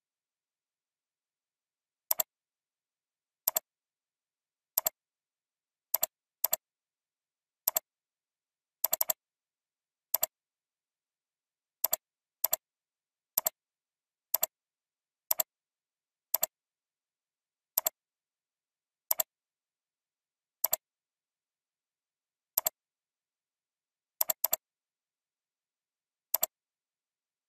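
Computer mouse clicking about twenty times at irregular intervals, each click heard as a quick press-and-release pair, with dead silence between.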